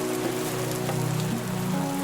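Steady rain falling, with background music of held notes and chords playing over it.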